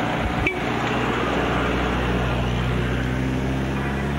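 A nearby engine running steadily with a low hum, and a single short knock about half a second in.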